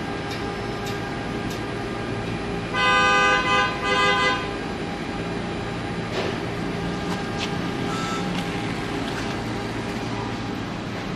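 A car horn honks in quick successive blasts lasting about a second and a half, about three seconds in, over a steady machinery hum with occasional light clicks.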